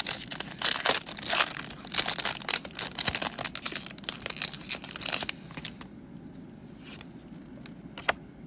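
Pokémon trading-card booster pack's foil wrapper being crinkled and torn open: dense crackling for about five seconds, then it goes much quieter with a few light clicks.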